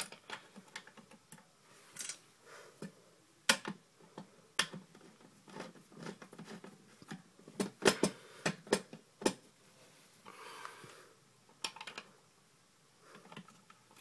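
Scattered sharp clicks and knocks of a screwdriver and wire against the metal lugs and screws inside an electric meter socket as a wire is fastened in a lug, with a brief scrape about ten and a half seconds in.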